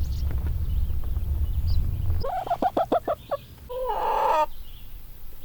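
A bird calling: a quick run of about eight short notes, then one longer call. A low rumble fills the first two seconds.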